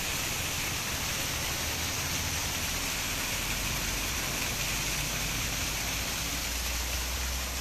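Small mountain waterfall pouring down a rock face and splashing onto the rocks below: a steady rushing hiss.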